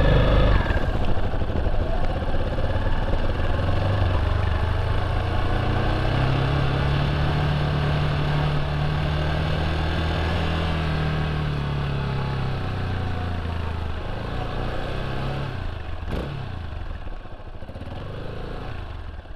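Motorcycle engine running under way at a steady pace, its pitch rising slowly and then easing back down. It gets somewhat quieter near the end.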